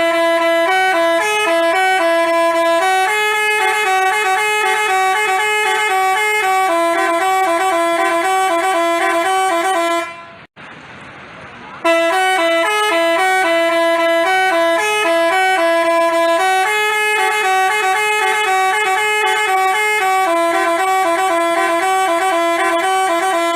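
Basuri 'telolet' multi-tone bus horn playing a tune of short, stepping notes. The same phrase of about ten seconds plays twice, with a brief break about ten seconds in.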